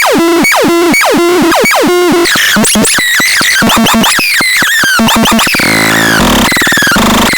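Electronic synthesizer sounds: rapid repeated blips and zaps that keep sweeping down in pitch. About two-thirds of the way through they give way to a denser buzzing texture with a low pulse.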